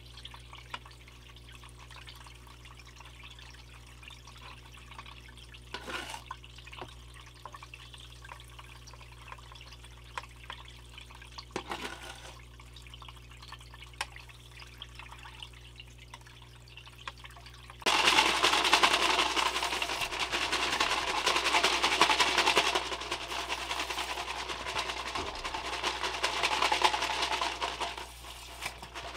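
Water splashing and trickling as gold paydirt is washed, over a steady low hum. About two-thirds of the way in it jumps suddenly to a loud, steady rush of water.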